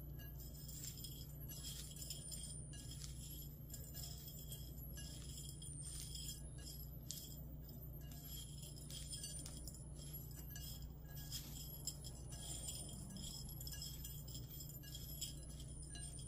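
Faint rustling and soft clinks as a hand tosses and squeezes shredded cabbage with salt in a glass bowl, working the salt in. Under it runs a steady low hum with faint tinkly background music.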